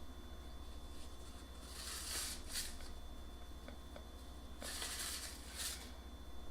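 Two soft rustling hisses, each about a second long, from dry vanilla pudding mix being shaken out of its packet over a pan of rolls, with a couple of faint ticks between them.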